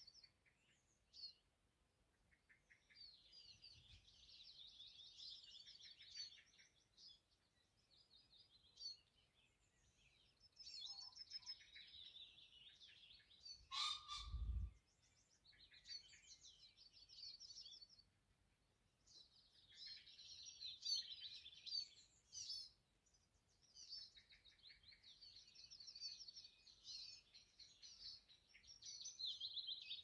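Faint songbirds singing in short, rapid, trilling phrases with pauses between them. About halfway through comes a single dull thump with a sharp click.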